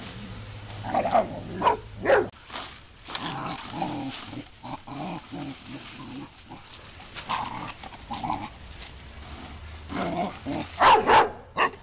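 Two boxador puppies (boxer–Labrador mixes) barking and growling in rough play over a rake, in short irregular outbursts, the loudest coming near the end.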